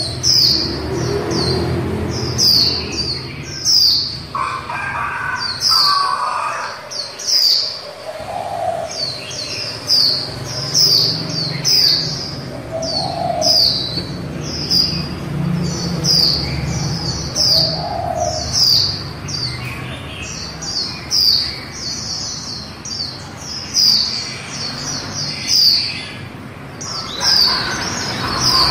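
Female white-eye calling in quick runs of short, high, down-slurred chirps, repeated over and over.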